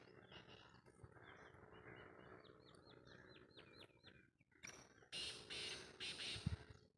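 A bird gives a quick run of about seven sharp, falling chirps about two and a half seconds in. Louder bursts of rustling noise follow, with a short low thump near the end.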